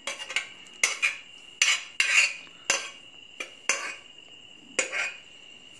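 A long steel spoon scraping and clanking against an aluminium pressure cooker and a steel vessel as thick cooked tomato-onion mixture is scooped out, with repeated sharp metal knocks and scrapes at irregular intervals.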